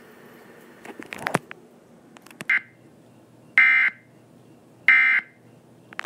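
Emergency Alert System end-of-message tones: three short bursts of SAME digital data signal, about 1.3 seconds apart. A few clicks come about a second in, just before them.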